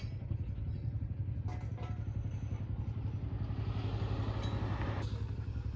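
Motorcycle engine running with a steady, rapid low pulse. A hiss swells up about three and a half seconds in and cuts off sharply about a second and a half later.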